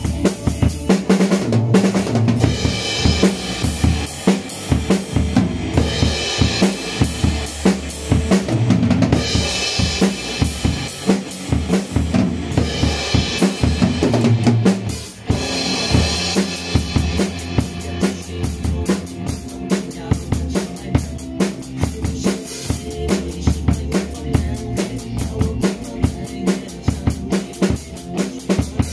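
Acoustic drum kit played with sticks: a steady beat of bass drum, snare and cymbals, with a short break about halfway through.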